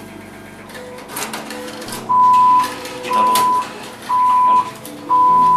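ATM beeping: four steady single-pitch beeps, each about half a second long and about a second apart, starting about two seconds in. It is the machine's prompt to take the printed receipt waiting in its slot.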